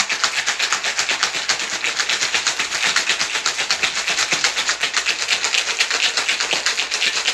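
Ice rattling hard inside a stainless steel cocktail shaker being shaken vigorously: a fast, even rattle that doesn't let up.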